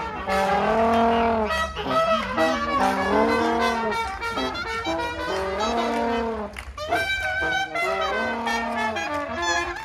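A small trad jazz band playing live: trumpet, trombone, clarinet and saxophone sounding together in long held chords that swell every couple of seconds, over a regular rhythm.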